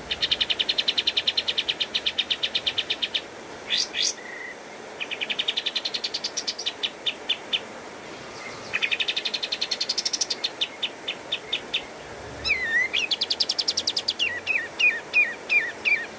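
Kapas tembak bulbul singing in rapid, rattling trills of about ten notes a second, several of them climbing in pitch, in four phrases with short gaps. A looped whistle comes about three-quarters of the way in, then a run of separate downslurred notes.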